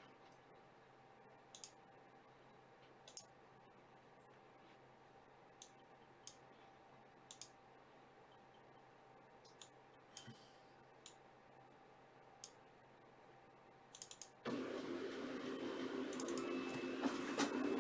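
Computer mouse clicks and keystrokes, single clicks spaced a second or two apart. About fourteen seconds in, a louder steady noise with a low hum starts and keeps going.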